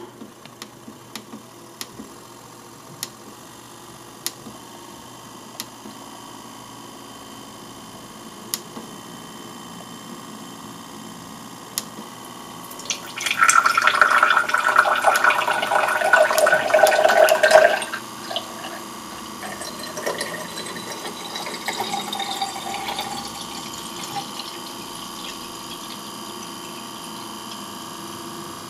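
3D-printed Archimedes screw turning in a clear tube and lifting water: a quiet steady hum with scattered drips, then about halfway through a loud burst of splashing and gurgling for around five seconds as the water reaches the outlet and spills into an empty glass, settling to a steadier trickle of the stream pouring into the filling glass.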